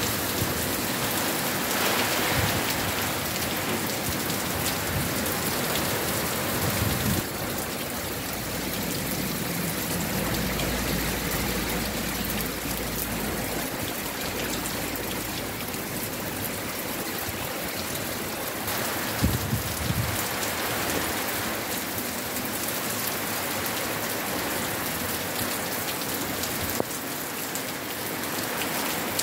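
A tropical storm's heavy rain and gusting wind, a steady dense hiss with low rumbling gusts swelling now and then. There are a couple of brief sharp knocks, one about two-thirds of the way through and one near the end.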